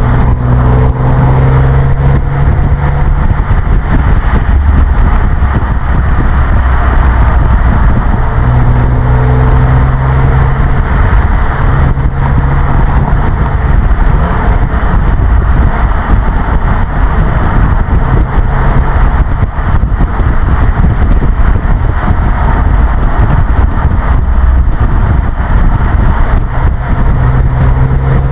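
Audi TT 3.2 V6 exhaust while driving, a steady low drone under loud road and wind rush. The drone swells and fades a few times.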